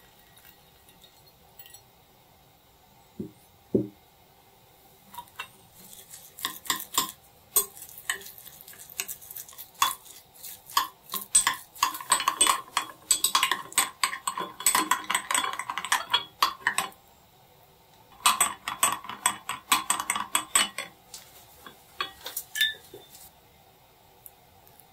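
A spoon stirring a mixture in a bowl, with rapid clinks against the sides in two long bouts and a short pause between. Two short knocks come a few seconds before the stirring starts.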